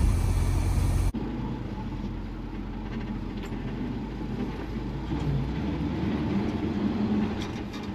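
1975 Chevrolet C20 pickup's engine idling under the open hood, then, after a cut about a second in, running as the truck drives off, heard from inside the cab and getting a little louder midway as it pulls along.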